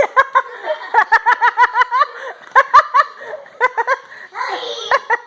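A child laughing hard: high-pitched giggles in quick runs of 'ha-ha-ha', about seven a second. There are a few sharp clicks near the start.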